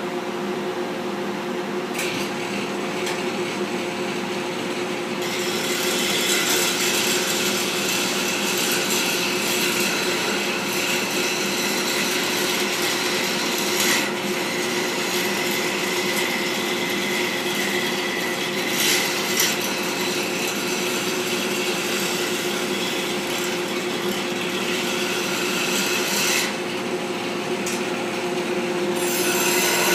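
Lathe motor running with a steady hum while a turning tool scrapes and cuts a spinning wooden workpiece, the cutting noise starting a few seconds in and easing off near the end.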